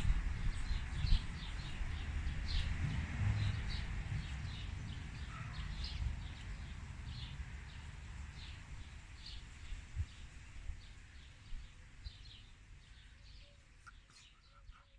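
Small birds chirping over and over in short, high notes above a low rumble, all fading out near the end.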